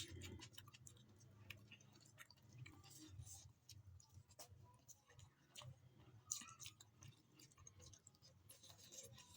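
Faint chewing and small wet mouth clicks of a person eating soft rice and chicken curry, with scattered light clicks and one sharper click a little past six seconds in.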